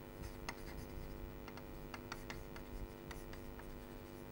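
Chalk scratching and tapping on a chalkboard as a word is written out in a run of short strokes, faint, over a low steady hum.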